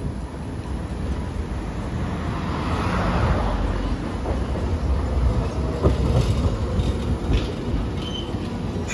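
Hiroden 800-series streetcar rolling up on street-embedded rails and drawing close, a low rumble that builds over the first few seconds. A few sharp clicks from the wheels over the track come in the middle, and a brief wheel squeal near the end.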